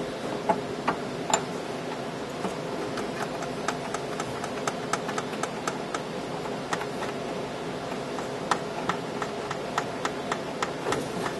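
Small irregular clicks and taps of hands reattaching cable connectors inside a tape library, a few a second at uneven spacing, over a steady background hum.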